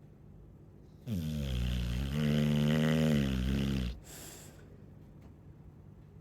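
Chow chow snoring: one long, pitched snore starting about a second in and lasting nearly three seconds, its pitch dropping at first and then holding steady, followed by a short hiss of breath.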